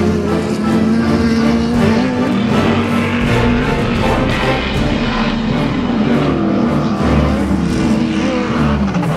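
Rock music with an off-road race vehicle's engine running under it, the pitch dipping and climbing back near the end.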